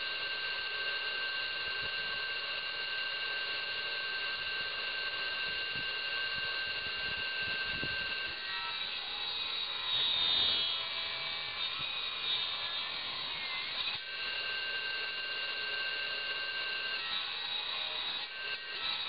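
Electric circular saw on a tractor-mounted rig running free with a steady whine, then cutting through a branch from about eight seconds in, the whine giving way to a louder rasp of blade in wood; it runs free again briefly and starts a second cut near the end.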